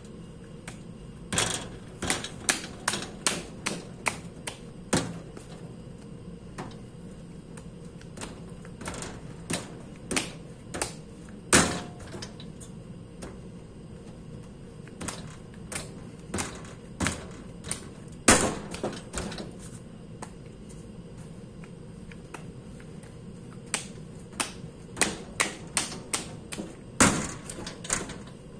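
Clay being spiral-wedged by hand on a wedging board: irregular knocks and dull thuds as the lump is rocked forward and pressed down, coming in runs with quiet gaps. This is clay being readied for throwing on the wheel. A faint steady hum runs underneath.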